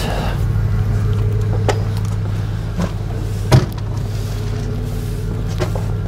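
A steady, low mechanical hum, with a few short clicks or knocks over it.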